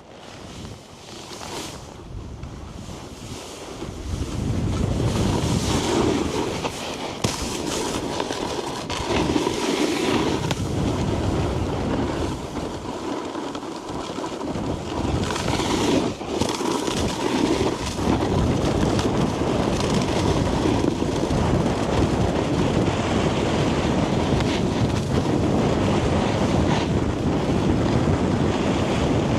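Strong wind buffeting the microphone as a snowboard slides over snow, getting much louder about four seconds in as the board picks up speed, then staying steady.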